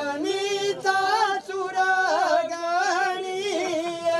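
One voice singing a slow devotional bhajan melody unaccompanied, the notes wavering and ornamented, with a long held note near the end.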